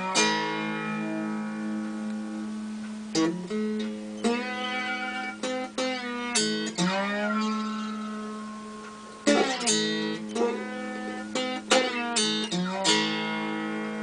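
Homemade cookie tin guitar, a shortbread tin body with a wooden neck, played with a metal slide: single plucked notes ring out over a steady drone string, and one note slides in pitch about halfway through.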